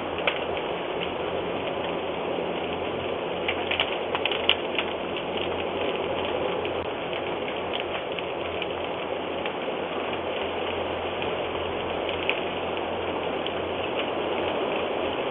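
Steady rushing noise with scattered crackles and clicks, a cluster of them a few seconds in, in muffled, narrow-range audio.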